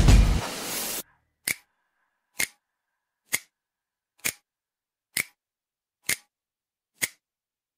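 Background music fading out, then seven sharp, evenly spaced clock-like ticks, a little under one a second, against dead silence.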